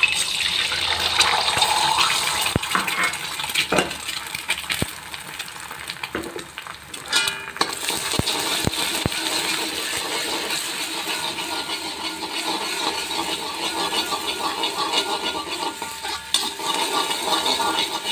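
An egg hitting hot oil in a wok, sizzling at once with a sudden start and frying on steadily. A metal spatula scrapes and clinks against the wok as the egg is broken up, with sharp clicks mostly in the first half.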